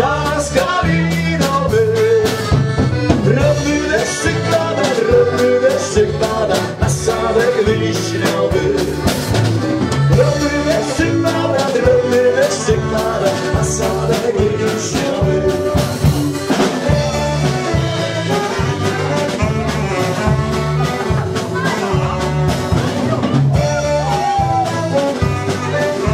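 Live folk band playing a lively dance tune on accordion, bass guitar and drum kit, with men singing into microphones over a steady beat.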